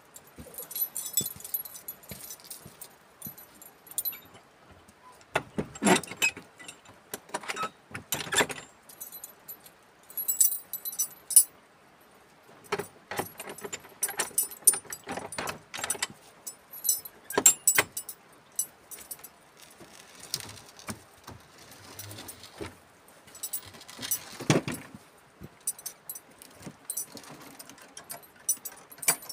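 Metal clinking and rattling as an old iron door lock and latch bar are handled by hand, with irregular jingles and clicks and a few heavier knocks against the wooden door, about 6, 8 and 24 seconds in.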